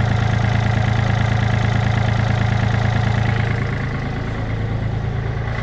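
Yanmar mini-excavator's diesel engine idling steadily, sounding pretty decent after a badly needed oil change. It gets a little quieter from about three and a half seconds in.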